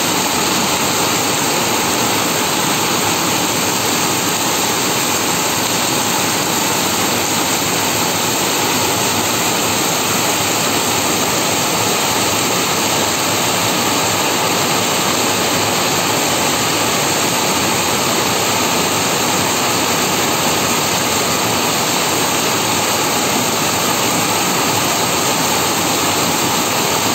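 Heavy rain pouring steadily onto a concrete yard, a dense, even hiss of drops splashing on the paving.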